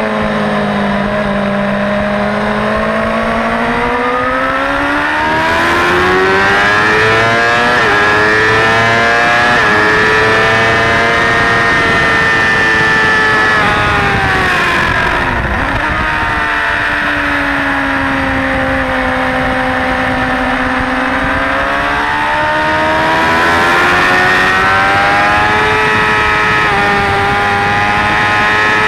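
Suzuki GSX-R600 K4's inline-four engine under hard riding on track. It pulls from low revs, climbing in pitch through two quick upshifts, falls away as the bike slows and downshifts about halfway through, then climbs again through the gears near the end.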